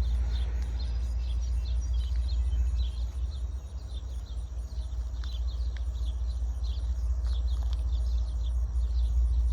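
Birds chirping repeatedly over a steady low rumble.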